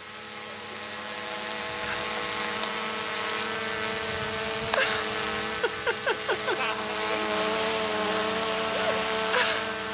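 Camera drone's propellers buzzing with a steady, many-toned hum that grows louder over the first two seconds and then holds.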